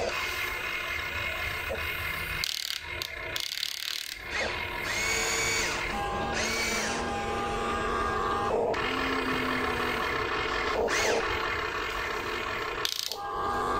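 Huina RC excavator's electric motors and gearboxes whining as the boom, arm and bucket move, in several steady tones that start, stop and shift in pitch as each function is worked, with a brief lull about three seconds in.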